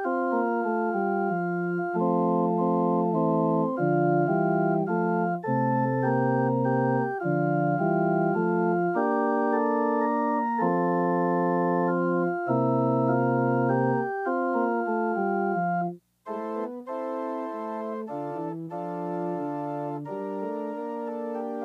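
Church organ playing a sequence of held chords over a low pedal bass line. About three quarters of the way through it breaks off for an instant, then carries on more lightly without the bass.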